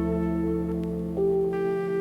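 Instrumental background music: sustained, held notes over a low bass tone, with a new note coming in about a second in and the bass fading near the end.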